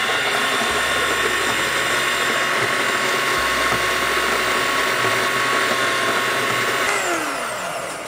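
WPM Welhome Pro ZD-10T conical burr coffee grinder running loud and steady with a high motor whine, grinding out cleaning tablets to clear coffee oils from the burr chamber. About seven seconds in, the motor stops and its pitch falls as it spins down.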